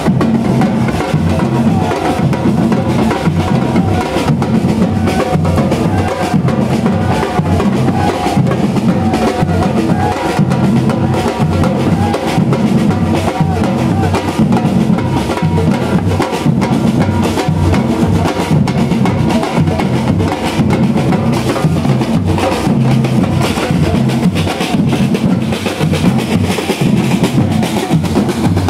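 Street percussion band of large aluminium surdo bass drums, snare drums and tall hand drums playing a loud, steady, dense groove, with the deep surdo strokes strongest.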